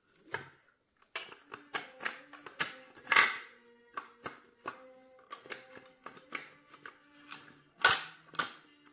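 A string of sharp clicks and knocks from household items being handled and set down, with two louder knocks about three and eight seconds in, over soft background music.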